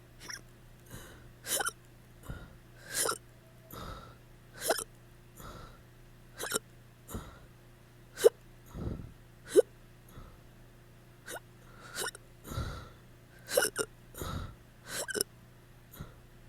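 A person hiccuping repeatedly from drinking too much alcohol: short, sharp hiccups about once a second, the two sharpest about halfway through.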